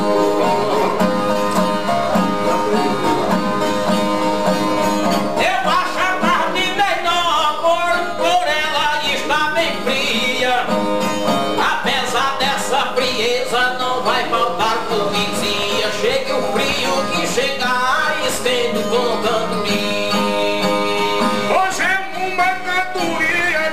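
A Brazilian viola strummed and picked, with a man's voice singing a wavering, ornamented cantoria line over it from about five seconds in.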